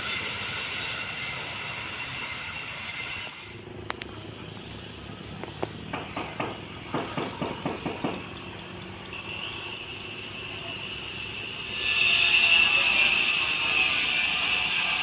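Train noise beside a railway line: a steady running noise, then a run of about ten sharp, evenly spaced clacks midway, and a louder steady rush from about twelve seconds in.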